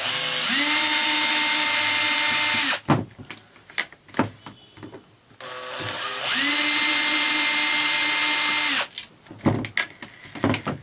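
Electric drill in first gear backing out the housing screws of another drill: its motor whines steadily in two runs of about three seconds each, each stepping up to full speed shortly after starting. Sharp clicks and knocks of screws and parts being handled come between the runs and after them.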